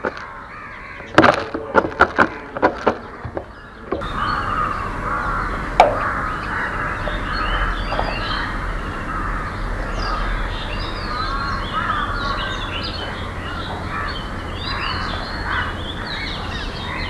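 Birds calling: several short, loud caws over the first few seconds. From about four seconds in, a dense chorus of small birds chirping and twittering takes over, over a steady low rumble.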